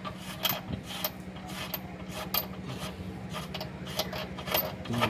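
Hand ratchet wrench clicking in short, irregular runs as the bolts of a lower engine support mount are loosened.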